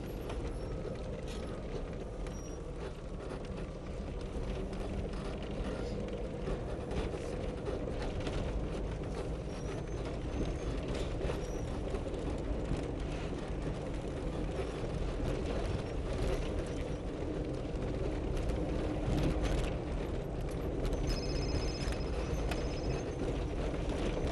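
Off-road vehicle's engine running steadily at low speed over a bumpy dirt trail, heard from inside the cab, with frequent rattles and knocks from the body over the bumps.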